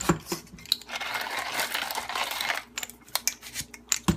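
Stainless-steel manual burr coffee grinder being worked at its coarsest setting: sharp clicks and knocks, with a scratchy rustle of coffee lasting about a second and a half in the middle.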